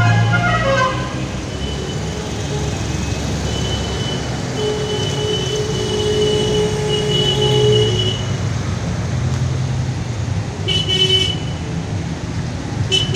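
Small vintage cars driving slowly past one after another, engines running and tyres on a wet road, with car horn notes: a drawn-out one in the middle and short toots about two-thirds through and again at the end.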